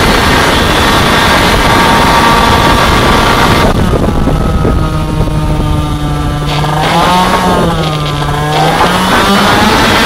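Race scooter's two-stroke engine running flat out with a loud rush; about four seconds in the throttle closes and the engine note falls, then dips and rises a couple of times before climbing again near the end.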